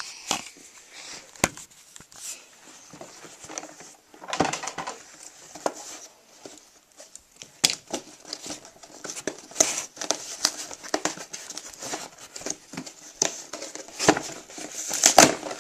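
A cardboard shipping box being handled and opened: irregular crinkling and rustling with many short knocks and scrapes, the busiest and loudest stretch coming shortly before the end.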